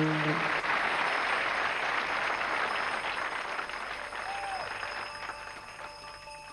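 Studio audience applauding, the applause slowly fading away. A held musical chord ends just after the start, and faint chiming tones of the next music come in near the end.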